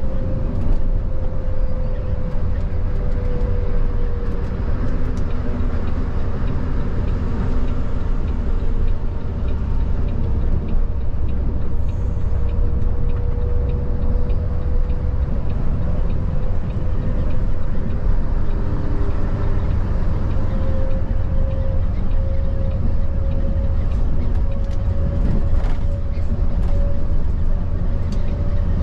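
Coach bus on the move: a steady low engine and road rumble with a thin droning tone above it that wavers slightly.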